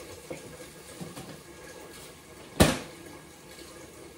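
A single sharp clack of something hard being knocked or set down, a little over halfway through, with a few faint knocks and handling sounds before it.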